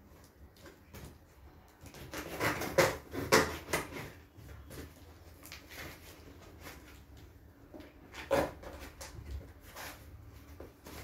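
Tape being torn and peeled off a small cardboard parcel box by hand, with a cluster of loud tearing sounds about two to four seconds in and another short tear a little after eight seconds, and quieter cardboard handling between.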